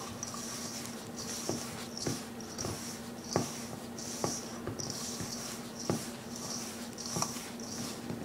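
Hands rubbing dry flour, semolina and oil together in a stainless steel bowl, working the oil into the flour before any water goes in: a rhythmic rustling hiss about twice a second, with a few light knocks of fingers against the bowl. A faint steady hum runs underneath.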